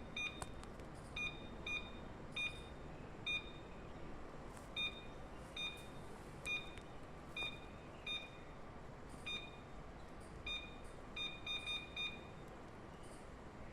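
Short electronic key-press beeps from a Honeywell DCP551 controller's keypad as its arrow keys are pressed over and over. There is one brief beep per press, about one a second, then a quick run of several near the end. Each beep shows the key is registering, and the arrow keys are working after repair.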